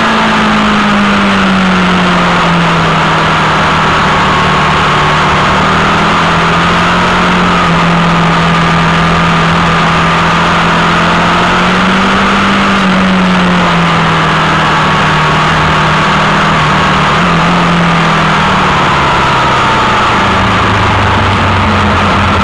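Sport motorcycle engine running at road speed, heard from the bike itself: its note eases down a couple of seconds in, climbs again about halfway and drops near the end as the throttle changes. A heavy rush of wind over the microphone runs under it.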